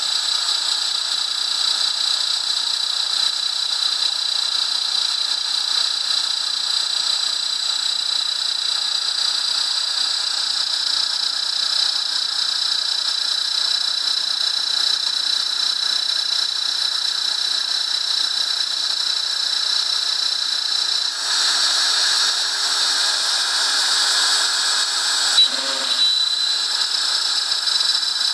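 Router spindle on a small CNC milling machine running with a steady high whine as its bit works a part clamped in a vise. About three quarters of the way through the sound grows louder and fuller, and a few seconds later there is one short knock.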